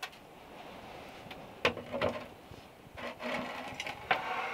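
Sharp knocks and a rubbing rattle as a glass wine bottle is handled at its neck and set down on a wooden counter, with knocks about two seconds in and again near the end.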